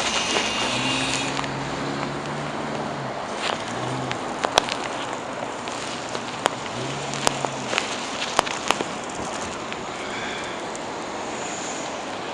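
Traffic on a snowy city street: a steady hiss of passing vehicles, with a low hum from passing vehicles that comes and goes three times. Several sharp clicks sound through it.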